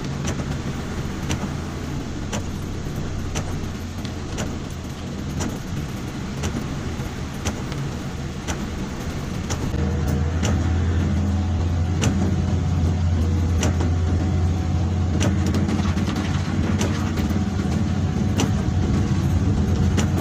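Car running along a wet road, heard from inside the cabin: a steady low engine and road hum with tyre hiss, which grows louder about halfway through. A light click recurs about once a second.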